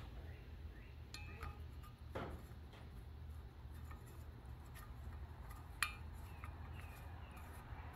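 Faint clicks and clinks of a small glass flame-tip bulb being screwed into the socket in an old brass blowtorch's nozzle, with one sharper click about six seconds in, over a steady low hum.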